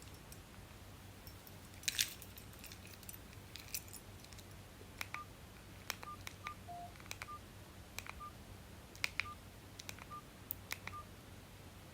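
Mini flip phone's keypad being pressed to step through its menu: faint key clicks, each with a short beep, about nine of one pitch and one lower, spaced irregularly through the second half.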